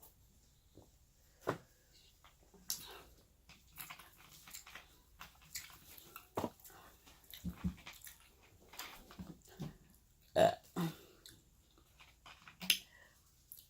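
Messy eating up close: a string of short wet smacks, clicks and chewing sounds from eating seafood by hand, with a burp among them.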